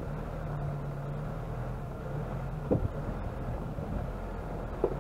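Off-road vehicle's engine running steadily as it descends a rocky mountain track, with two knocks of the vehicle jolting over rocks, one a little past halfway and one near the end.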